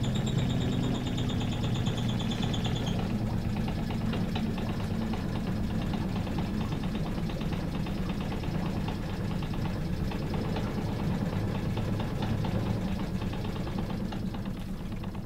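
A motor vehicle's engine running steadily, a low hum with a fine rapid pulse. A thin high-pitched electronic tone sounds over it for about the first three seconds and then stops.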